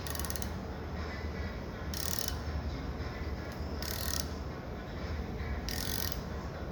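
Ratcheting tap wrench driving a tap into a pre-drilled hole in hardened steel. The ratchet clicks in short bursts about every two seconds, once per turn-and-return stroke, over a steady low hum.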